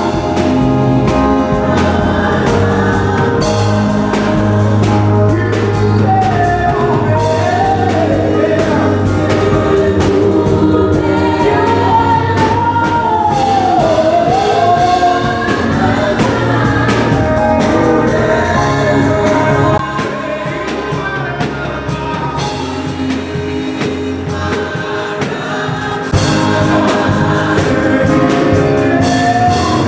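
Gospel worship song: a choir and lead voice singing over a band. The bass drops out for several seconds about two-thirds of the way through, then comes back in.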